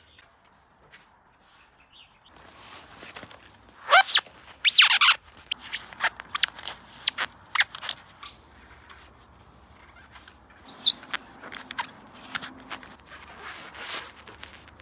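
Air-conditioner copper tubing being handled and worked: scattered clicks, knocks and rubbing, with louder squeaky scrapes about four and five seconds in and another near eleven seconds.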